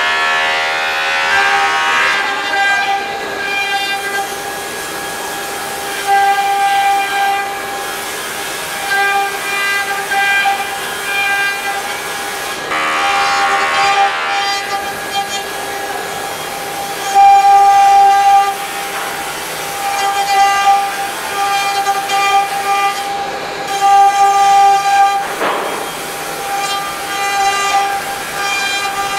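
CNC router spindle whining steadily with a high tone while its V-bit cuts grooves into a wooden panel; the cutting noise swells for a second or two at a time, several times over.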